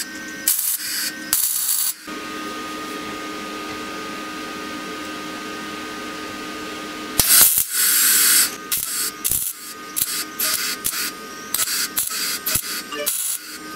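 Electric arc welding a steel ball onto the end of a steel rod: the arc strikes about seven seconds in with a loud hiss, then crackles and sputters in irregular bursts. Before that, a few sharp knocks and then a steady hum.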